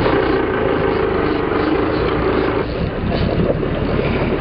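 Boat engine running steadily, a continuous drone with rushing noise over it.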